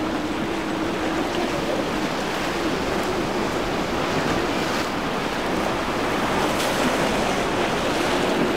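Surf and wind rushing on the microphone, with the steady drone of a center-console boat's outboard engines underneath, clearer at the start and again near the end.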